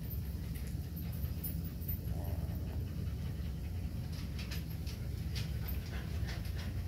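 Phu Quoc Ridgeback puppies panting steadily. From about halfway through come light, scattered clicking ticks as some of the puppies walk about on the tiles.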